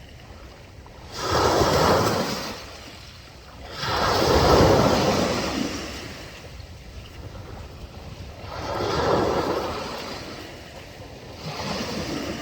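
Sea waves surging and washing in, about four swells of surf each a second or two long, the loudest one a little past the middle.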